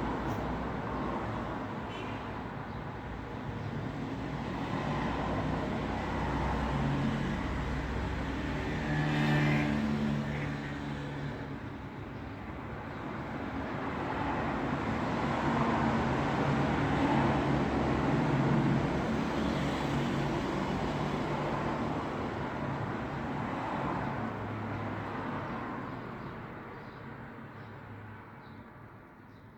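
Road traffic: cars passing one after another with engine hum and tyre noise that swells and eases, loudest about nine seconds in and again in the middle, fading away near the end.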